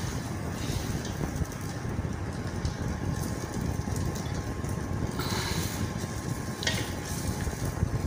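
Chips omelette cooking in a pan on a gas stove: a steady low rumble with a few faint ticks and a short burst of hiss about five seconds in.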